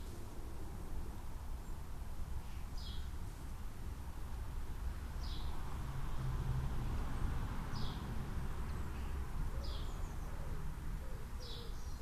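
A bird calling a short, high, slightly falling note about every two seconds, six times, over a steady low background rumble.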